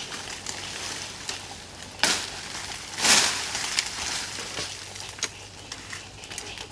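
A hatchet chopping at branches: a sharp hit about two seconds in and a louder crunch with rustling leaves a second later, among lighter snaps and rustles of twigs and undergrowth.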